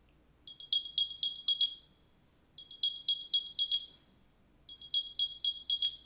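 Apple AirPods Pro (2nd generation) charging case speaker playing its Find My locating sound. It sounds three bursts of rapid high-pitched chirps, each burst about a second long and about a second apart. The sound is a little higher pitched than an AirTag's.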